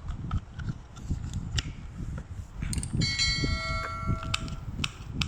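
Clicks, knocks and handling noise from working on a small plastic power-window switch part with hand tools. About three seconds in, a metal object rings for over a second, like a tool struck or set down.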